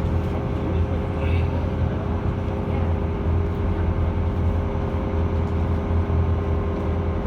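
Steady low engine drone of a vehicle underway, with a constant hum above it.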